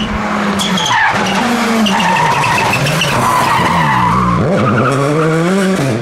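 Citroën C3 Rally2 rally car slowing for a hairpin, its engine revs falling and wavering with a few sharp pops, then accelerating out of the corner from about four and a half seconds in, revs rising steadily. Tyre noise runs under the engine.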